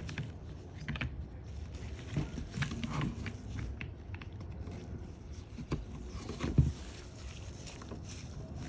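Plastic case halves of a Snap-on cordless ratchet being handled and pressed into place, a string of small clicks and knocks with one sharper knock about two-thirds of the way through.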